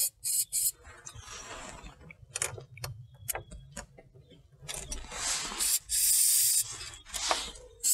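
Aerosol can of battery terminal protector spray hissing onto car battery terminals, coating them against corrosion: a few short bursts at the start and a longer spray about five to six and a half seconds in. Between the sprays come a few light clicks and knocks.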